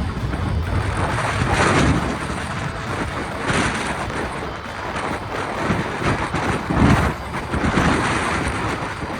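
Wind buffeting the microphone in gusts: a rough, rumbling rush that swells and eases every second or two.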